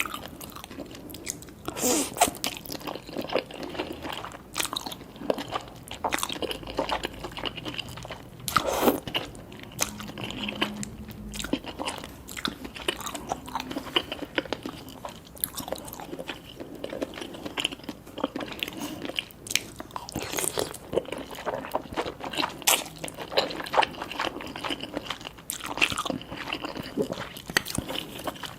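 Close-miked eating sounds: chewing and biting on spicy cheese noodles with tobiko (flying fish roe), with many small irregular crunches and clicks.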